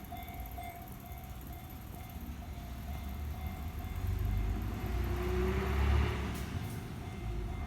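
Electronic warning bell of a Japanese railway level crossing ringing, with a low rumble that builds to its loudest about six seconds in as a train approaches the crossing.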